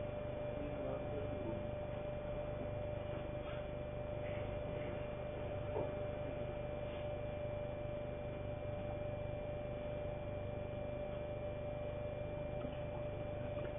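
Steady electrical hum and hiss with a constant high tone, with one faint click about six seconds in.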